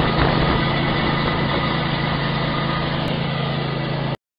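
Small petrol engine of a Toro walk-behind core aerator running steadily with a low hum. It cuts off abruptly near the end.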